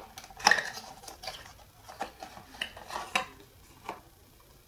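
Hands handling and opening a skincare product's packaging: a series of sharp clicks, taps and rustles, the loudest about half a second in.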